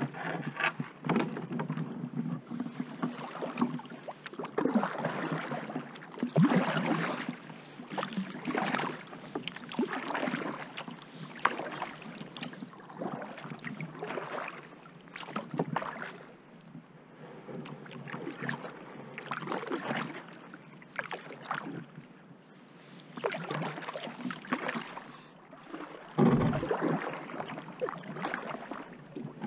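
Kayak paddle strokes dipping and swishing through calm river water, one every second or two, with water dripping from the blades. A louder thump sounds near the end.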